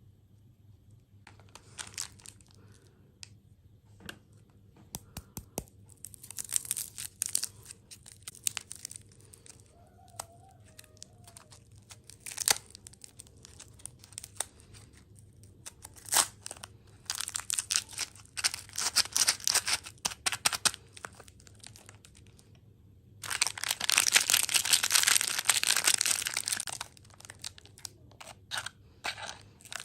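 Crinkling and tearing of plastic packaging, in irregular crackly bursts with sharp clicks, busiest and loudest in a long stretch about 23 seconds in.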